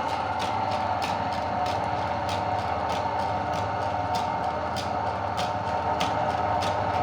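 Electric meat grinder's motor running steadily, with sharp clicks about twice a second.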